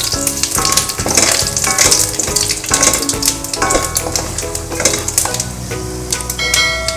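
Mustard seeds spluttering and popping in hot coconut oil, a sizzle full of quick sharp pops, as the tempering of seeds, dried red chillies and curry leaves is stirred with a wooden spatula in a stainless steel pan.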